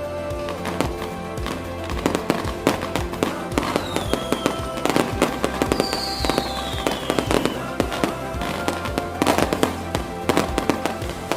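Firecrackers and fireworks going off in many sharp bangs and crackles, thickest around the middle and again near the end, over background music with a steady bass.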